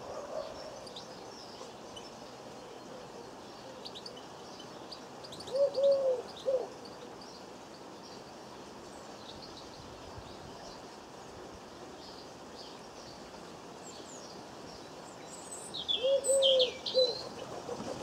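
A dove cooing twice, a low phrase of a long arched note and a short one about five seconds in and again near the end, over scattered high chirps of small garden birds.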